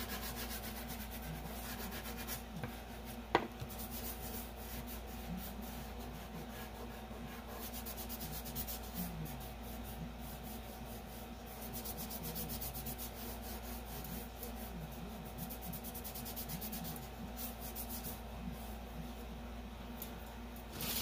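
Fingertip rubbing chalk pastel into paper, a soft repeated dry rubbing, with one sharp tap about three seconds in. A faint steady hum runs underneath.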